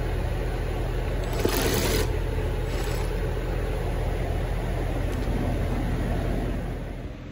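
Steady low mechanical rumble, like a motor or engine running, with a few brief hissy flares in the first three seconds; it drops away near the end.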